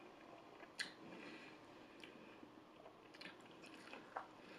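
Faint, quiet chewing with a few sharp, wet mouth clicks spaced about a second apart.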